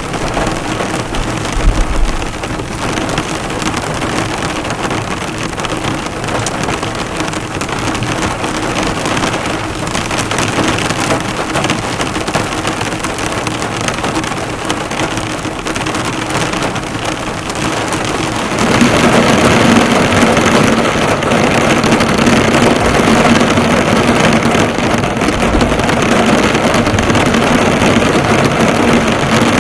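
Heavy rain falling on a car, the drops striking the hood; the rain gets noticeably louder about two-thirds of the way through.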